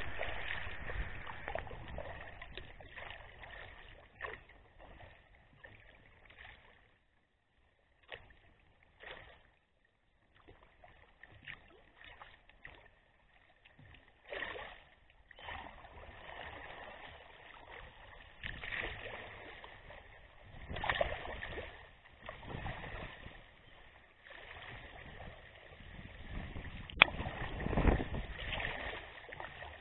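Water splashing and lapping against a sea kayak's hull as it is paddled, in uneven bursts with quieter stretches. A single sharp click near the end.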